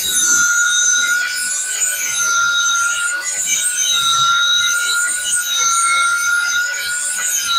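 Corded angle grinder running steadily at full speed, its abrasive wheel grinding the steel edge of a lawnmower blade: a steady high whine over a harsh, rasping grind.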